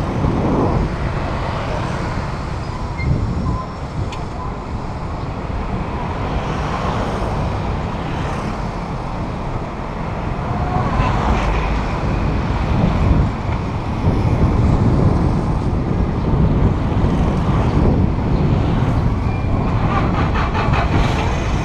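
City street traffic, motorbikes and cars passing, heard from a moving bicycle as a continuous loud rumble of engines and road noise. A rapid ticking comes in near the end.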